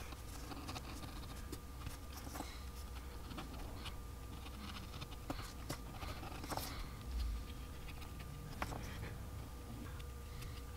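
Small pointed carving knife cutting detail lines into a wooden lure body: faint, short scratchy scrapes and ticks, irregularly spaced, over a low steady hum.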